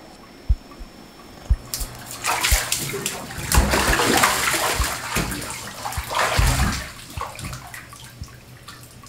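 Water splashing and sloshing in a bathtub as a body moves through it, building about two seconds in and loudest in the middle before settling. A few low thuds come before the splashing.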